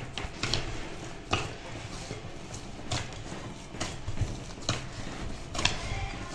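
Hands kneading soft baklava dough in a glass bowl: irregular squelching slaps and knocks, about one a second, as the dough is pressed and folded against the bowl.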